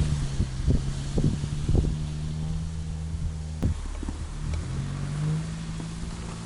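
Motor vehicle engine running with a steady low drone, with several knocks in the first two seconds and a sharp click about three and a half seconds in.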